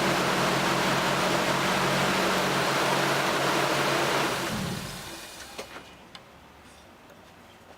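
Lexus IS300's 2JZ-GE inline-six running steadily with a strong intake hiss, then shut off about four and a half seconds in; a few light clicks follow.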